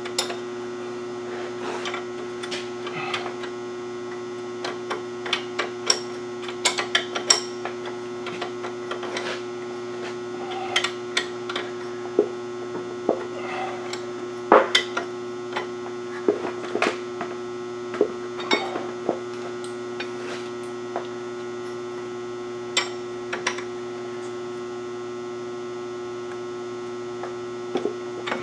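Steady electrical hum with irregular metallic clicks and clinks from a wrench as a castle nut is tightened on a pickup's front suspension.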